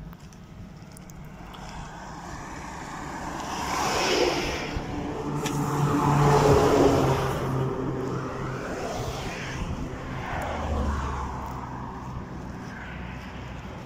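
Road traffic passing close by on a highway: a heavy truck's engine and tyres swell to the loudest point about six seconds in, with other vehicles passing before and after it.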